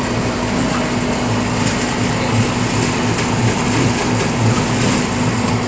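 Electric horizontal forced-action concrete mixer running: its motor and stirring-shaft drive giving a loud, steady mechanical noise with a constant hum and a low, uneven pulsing drone.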